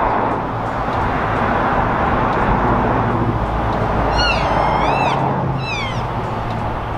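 Cow elk calling: a high, wavering mew about four seconds in, then a shorter call that falls in pitch, over a steady hiss.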